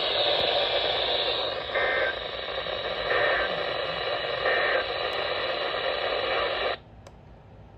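Weather radio receiver hissing with radio noise, with three short bursts of data tone about 1.4 s apart, the pattern of an EAS end-of-message code. The hiss cuts off suddenly about a second before the end as the transmission drops.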